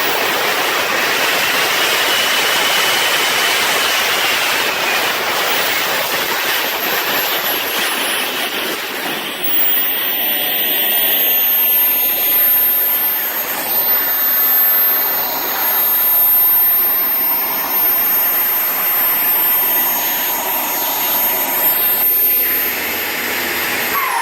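A KingTech K70G model jet turbine running on a test bench: a loud, steady rushing roar with a high, thin whine above it. The whine shifts in pitch partway through, and near the end its pitch begins to fall.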